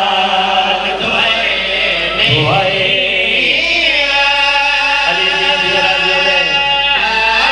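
Men's voices chanting a Punjabi Shia mourning lament in long, drawn-out notes, with pitch gliding between held tones and more than one voice singing together.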